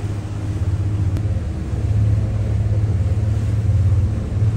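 Twin outboard motors running with a steady low drone.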